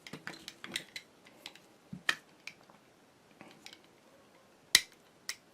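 Small metal parts of a sewing machine's hand-crank drive clicking and tapping as they are handled and fitted together, in scattered light clicks with one sharper click near the end.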